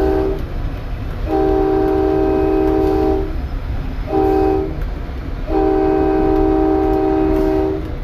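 Locomotive air horn sounding a multi-note chord in the grade-crossing pattern of long, long, short, long blasts. The first long blast ends about half a second in. This pattern is the standard warning that a train is approaching a public road crossing.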